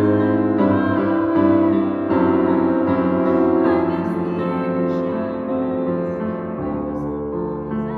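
Grand piano played solo, sustained chords ringing on in a reverberant concert hall. The chords change every second or two, growing a little softer toward the end.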